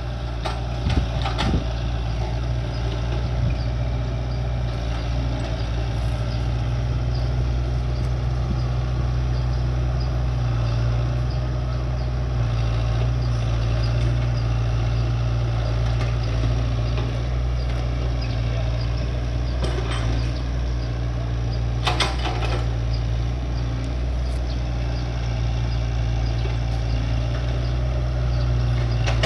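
Excavator's diesel engine running steadily, with a few short sharp knocks, the loudest about 22 seconds in.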